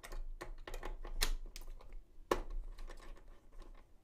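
Hardware being handled inside an open PC case while an AIO cooler's fans and parts are repositioned: irregular small plastic clicks and knocks, with two sharper knocks about a second and two seconds in.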